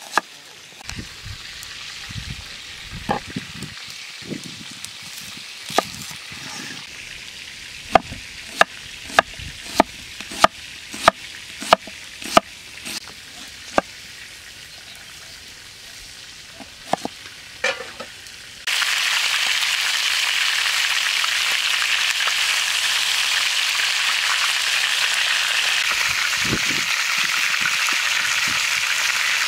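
Sharp knocks in a steady run of about one every half second, then, about two-thirds of the way in, a loud steady sizzle of food frying in a hot pan starts abruptly.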